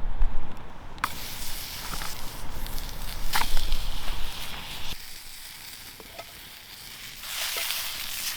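Sausages sizzling in a pan over a small campfire, with a steady hiss and scattered pops. Wind rumbles on the microphone through the first half and dies away about halfway through.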